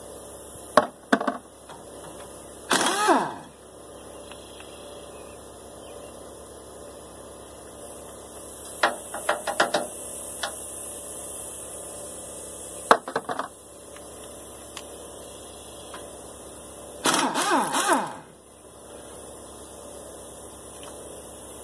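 Two short bursts of a power tool spinning and winding down in pitch, about 3 seconds in and again near 17 seconds, with sharp metal clicks and knocks between them, while bolts are worked loose from the flywheel of a scrap engine.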